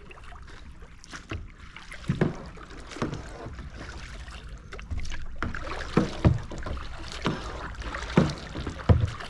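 Kayak paddle strokes: paddle blades dipping and splashing in the water, with sharp knocks at irregular intervals of roughly a second, over a low steady background.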